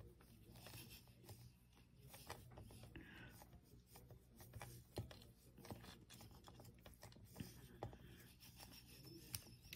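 Near silence with faint handling sounds: fingers squeezing and pressing a small stack of polymer clay on a work surface, with a few soft taps.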